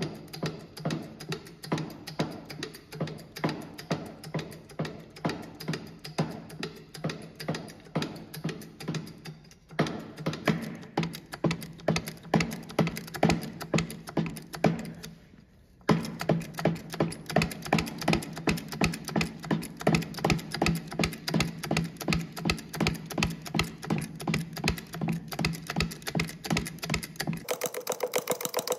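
Hydraulic bottle jack being pumped by hand to press a worn bush out of its bore, making fast, regular mechanical clicking over a steady low hum. The clicking breaks off briefly about fifteen seconds in.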